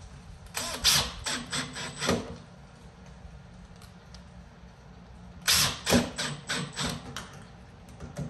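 Cordless drill-driver driving screws into a door knob's lockset, run in short bursts in two spells, about half a second in and again about five and a half seconds in.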